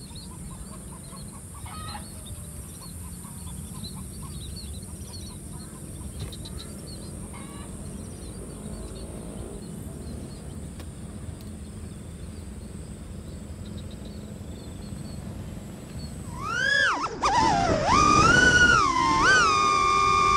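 Scattered bird calls over a low outdoor rumble. About sixteen seconds in, an FPV racing drone's motors spin up into a loud whine that swoops up and down in pitch with the throttle.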